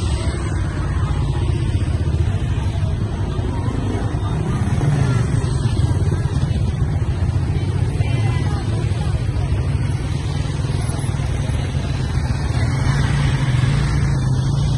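Motor scooter and motorbike engines running in slow street traffic: a steady low hum that swells a little about five seconds in and again near the end.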